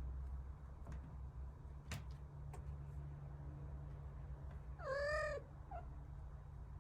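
A kitten gives one short, high meow about five seconds in, followed by a brief faint squeak. A steady low hum and a couple of faint ticks lie underneath.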